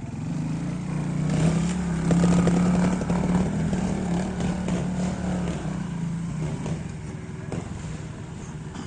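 Trial motorcycle engine pulling under throttle at fairly steady revs, loudest about two seconds in, then easing off and fading, with a few sharp knocks over it.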